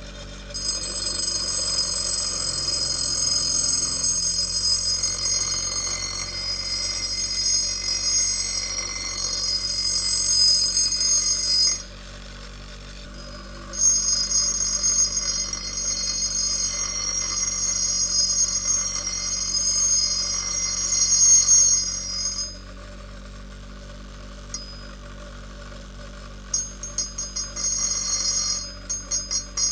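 Angle grinder grinding with a high-pitched, ringing screech in two long passes of about eleven and nine seconds, the motor running on more quietly in between; near the end the disc is touched to the work in a quick series of short bursts.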